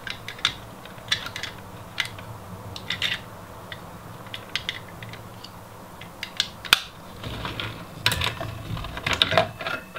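Scattered light clicks and taps of hardware being handled as the block and mounting bracket of a Corsair H100i all-in-one CPU cooler are worked into place over the processor. One sharper click comes about two-thirds of the way through, and the taps bunch up near the end.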